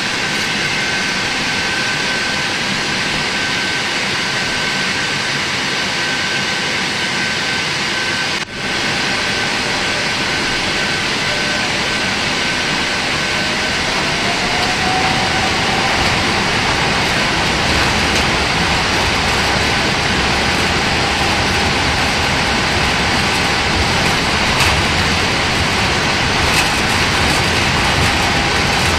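Boeing 747-8's GEnx-2B engines heard inside the cabin: a steady hum, with a brief dropout about eight seconds in. Past the middle the engine whine rises and then holds as the engines spool up to takeoff thrust, and a low rumble builds as the takeoff roll begins.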